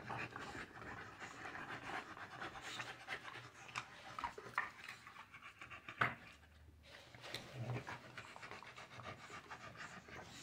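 American bully dogs panting and gnawing on chew bones, with many small clicks of teeth on bone; a sharper click about six seconds in.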